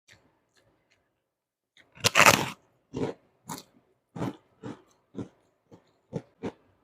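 A person biting into a crunchy cracker (kerupuk) and chewing it with the mouth close to the microphone: one loud crunching bite about two seconds in, then crisp chewing crunches about twice a second.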